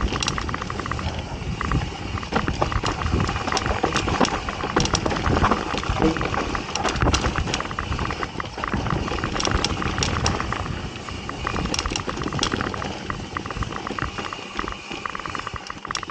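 Mountain bike riding down a dirt trail: steady tyre and rolling noise, with the bike rattling and frequent sharp clicks and knocks as it goes over bumps.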